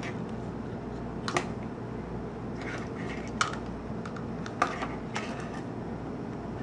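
Small plastic clicks and rattles as the opened plastic housing of a solar LED yard light is handled, with three sharp clicks standing out over steady background noise.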